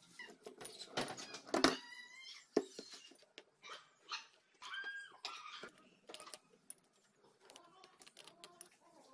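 Clicks and knocks of a small motorcycle cylinder head and its valve parts being handled on a bench, with one louder knock about one and a half seconds in. A few short high-pitched whines come at about two and five seconds in.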